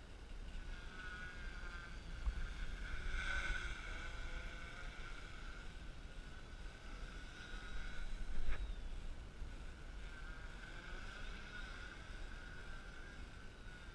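REPTILE500 X-frame quadcopter's motors and propellers whining steadily in flight, the pitch wavering and growing louder about three seconds in and again near the end. A single sharp click about eight and a half seconds in.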